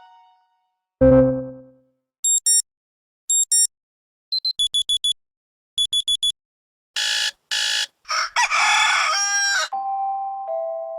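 Android phone notification and UI sounds played back to back: a decaying bell-like ding, pairs of high beeps, quick runs of short beeps, two short noisy bursts, then a rooster-crow sound effect, with a steady two-note chime starting near the end.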